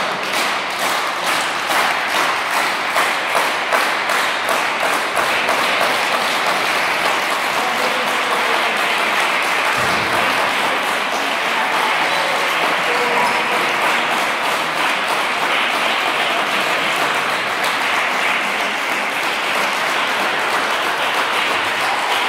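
A group of people clapping in rhythm, the claps quickening over the first few seconds, then merging into continuous applause.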